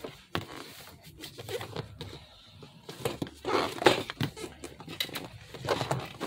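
Cardboard box being handled and turned over close to the microphone: rustling, scraping and a string of light knocks and taps, the sharpest a little under four seconds in.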